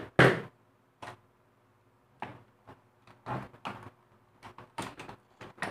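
Clicks, knocks and scrapes of a mini sewing machine's plastic housing being pried at with a screwdriver and handled while it is taken apart. A sharp knock comes about a quarter second in, followed by irregular smaller clicks.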